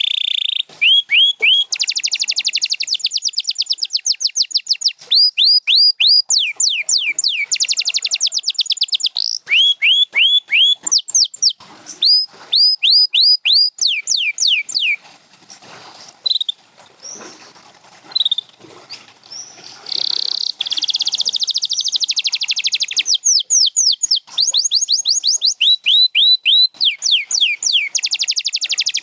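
Canary singing: fast runs of repeated down-slurred notes and rapid rolling trills, each phrase a string of identical syllables. The song falls quieter about halfway through, then resumes with more rolls and runs.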